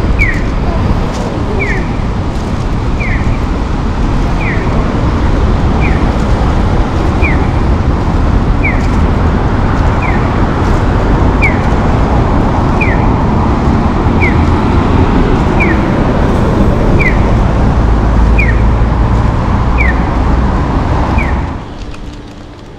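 Japanese pedestrian-crossing audible signal, a short falling electronic chirp repeated about every second and a half, over steady traffic noise. Both stop suddenly near the end.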